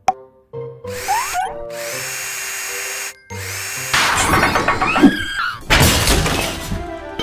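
Cartoon sound effect of a cordless power drill spinning on a truck's wheel nuts, starting about four seconds in and running for about three seconds, louder near the end. Playful background music comes before it.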